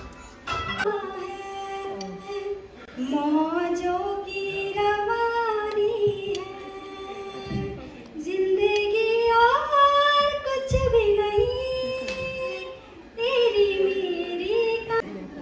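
A woman singing a slow melody into a microphone without accompaniment, in long held notes that slide up and down, with short breaks between phrases, amplified through the hall's speakers.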